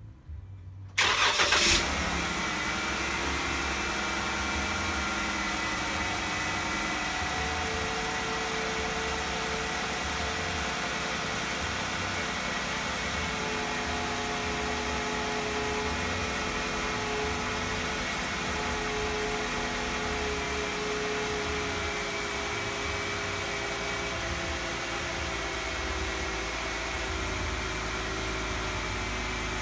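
The 2013 Jeep Wrangler JK's 3.6-litre V6 starting about a second in, a short loud burst as it cranks and catches, then idling steadily.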